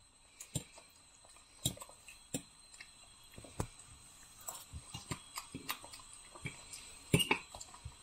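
A child eating with a metal fork from a plate: scattered short clicks of the fork against the plate, with chewing in between, and a cluster of louder clicks about seven seconds in.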